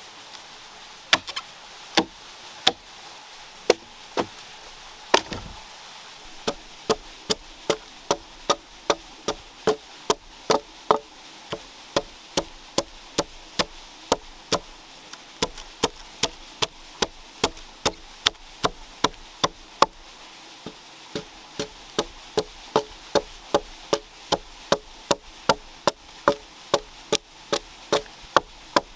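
Repeated sharp blows of a hand tool, a few slow uneven strikes at first, then a steady run of about two a second with a brief pause about two-thirds of the way through.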